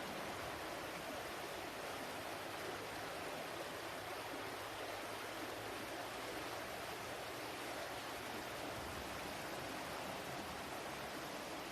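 Water flowing in a steady, even rush, like a stream or small waterfall.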